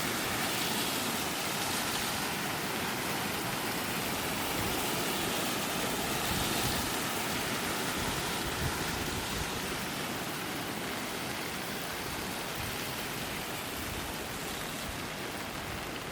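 Steady rush of flowing, falling water, a continuous even hiss that eases slightly near the end.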